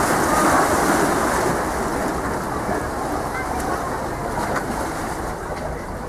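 Sea waves washing and splashing against the boulders of a rocky breakwater, loudest about a second in, then a steadier wash.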